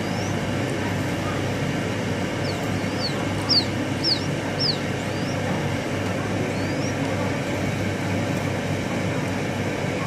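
Quail chicks peeping: a few short, high chirps, with three louder falling peeps in quick succession around the middle. A steady low rumbling background noise runs underneath.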